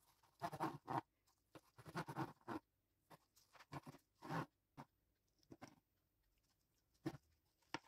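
Knife cutting a chocolate sponge cake layer into small cubes: faint, short cutting strokes, several in quick succession about two seconds in, then more spread out.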